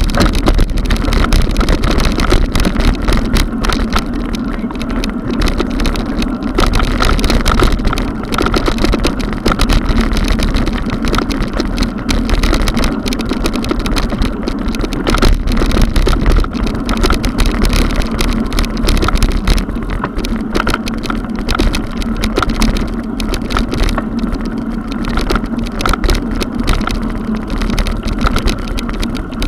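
Mountain bike rolling over stone paving, heard through a bike-mounted action camera: a loud steady rumble with continuous rattling from the bumps.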